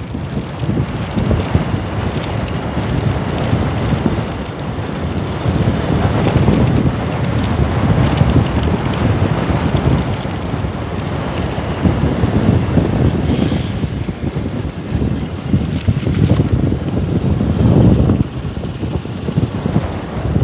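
Wind buffeting the microphone on a moving motorcycle: a loud, uneven low rush that swells and drops in gusts.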